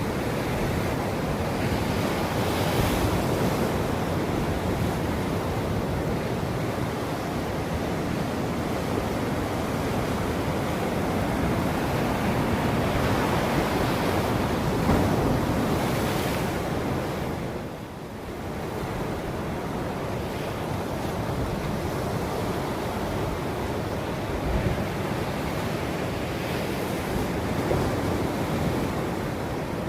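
Ocean surf: waves breaking and washing onto a beach in a continuous rush that swells and eases, with a brief lull a little past the middle.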